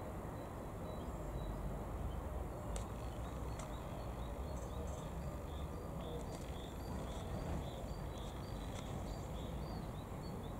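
Street ambience: a steady low rumble of distant traffic with small birds chirping over it again and again.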